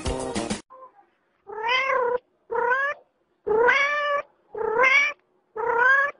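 Background music cuts off about half a second in, then a domestic cat meows five times, each meow rising and then falling in pitch.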